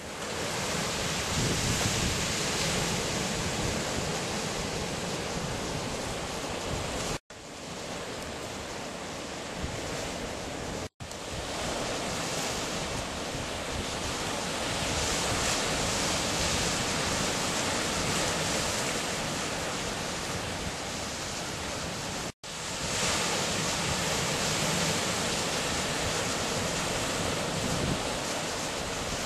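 Ocean surf breaking and washing over a rocky shoreline, a steady rushing noise with three momentary drops to silence.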